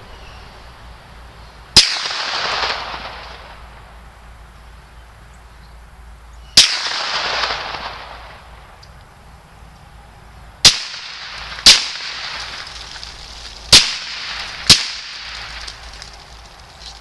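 Six suppressed 9mm pistol shots from a Glock 19 fitted with a Liberty Mystic suppressor: two single shots several seconds apart, then two quick pairs about a second apart. Each is a sharp crack followed by a fading echo. The handloads are thought to be a little above supersonic speed.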